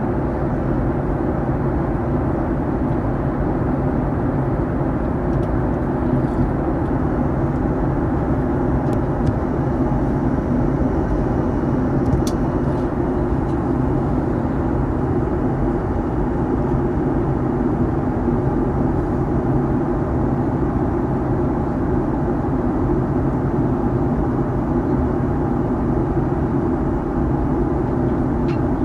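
Steady in-flight cabin noise of a Boeing 737-900ER: the CFM56 engines' drone and airflow over the fuselage, with a low hum under it, and a couple of faint ticks.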